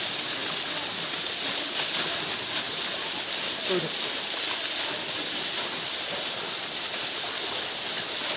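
Waterfall pouring onto rocks: a steady, even rush of falling water. A faint voice calls out briefly near the middle.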